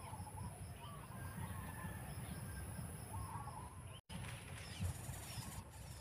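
Several short, wavering bird calls from a bird out of view, over a low wind-like rumble and a steady high insect hum.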